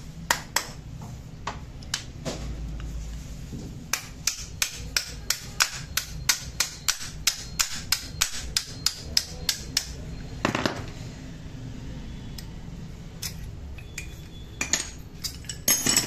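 Sharp metal-on-metal hammer taps on a motorcycle disc brake caliper, striking through a hole in it to drive out the brake-pad lock pin. A steady run of about three taps a second through the middle, with sparser taps before and after.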